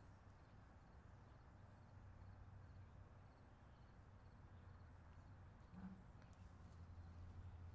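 Near silence: faint outdoor room tone with a low steady hum.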